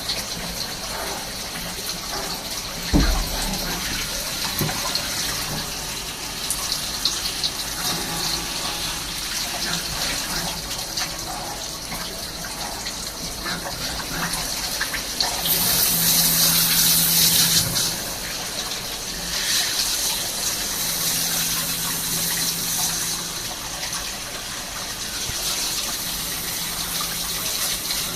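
Swiss-type CNC lathe running with cutting fluid splashing steadily over the work. Louder spells of hiss with a low hum come and go: a strong one about halfway through and two weaker ones near the end. There is a single knock about three seconds in.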